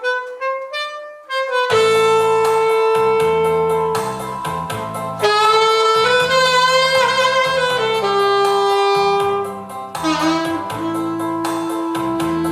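Saxophone playing a slow solo melody over an accompaniment with a bass line and a steady beat. It plays a few short notes, then long held notes, one of them with a wide vibrato in the middle.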